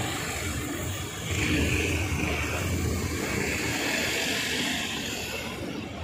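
Street traffic: the rushing noise of a passing motor vehicle swells about a second and a half in and eases off toward the end.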